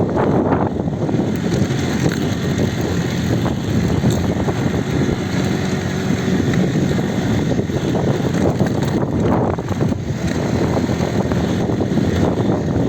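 Children's ATV engine running steadily, with wind buffeting the microphone.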